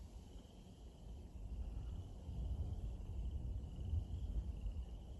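Faint, high-pitched trilling from a chorus of small calling animals, coming in runs of a second or two, over a steady low rumble.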